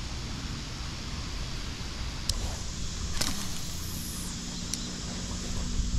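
Steady low outdoor rumble of wind on the microphone, with a few short, sharp clicks from the rod and reel being handled.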